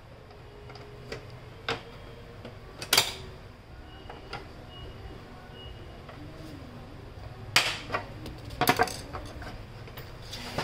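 Plastic snap latches of an HP LaserJet Pro M26 printer's side cover clicking and popping as the panel is pried loose with a screwdriver. Sharp clicks: one loud snap about 3 seconds in, and a quick cluster of them between about 7.5 and 9 seconds.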